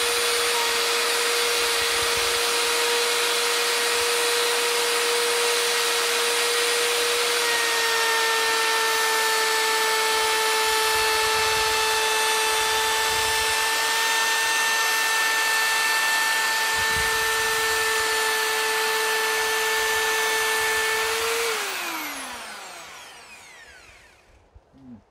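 Parkside POF 1200 D3 1200 W plunge router running at speed with a steady high whine, its pitch dipping slightly about a third of the way in as the bit cuts into the wood. Near the end the trigger is released and the motor winds down with a falling whine until it stops.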